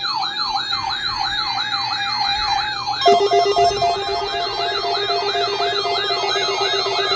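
Electronic weather-radio alert alarm sounding for a weekly test signal: a siren that sweeps up in pitch over and over, a little under two sweeps a second. About three seconds in, a second, faster siren joins with a pulsing steady tone beneath it.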